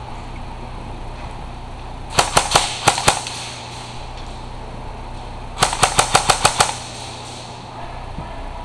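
Airsoft gun firing two bursts of sharp snapping shots: about six shots a little after two seconds in, then a faster string of about eight shots over roughly a second near the middle.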